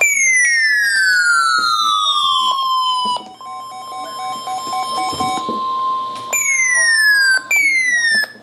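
Loud electronic alert tones introducing an Emergency Alert System warning: a tone sliding steadily downward for about three seconds, then a steady single-pitch tone with a faster pulsing beep beneath it, followed by two short downward slides near the end.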